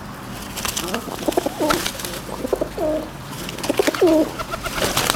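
Feral rock pigeons cooing: a series of low, bending calls starting about a second in, mixed with quick light clicks and taps of beaks pecking seed from a hand.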